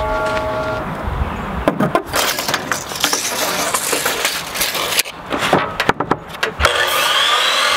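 A miter saw's hum dies away in the first second. Then comes clattering and knocking as a long wooden board is set down on the saw and a tape measure is pulled out and handled.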